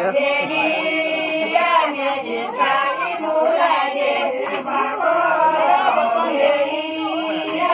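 A group of women singing a Kumaoni jhoda folk song together, several voices overlapping in a held, chant-like melody.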